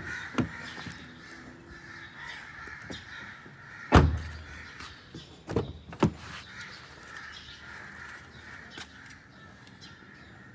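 Sharp clicks and knocks of a Honda City's front door being unlatched and swung open, the loudest about four seconds in, with birds calling steadily in the background.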